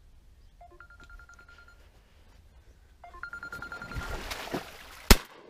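Mobile phone ringtone, two short trilling rings about two seconds apart, then a single shotgun shot near the end.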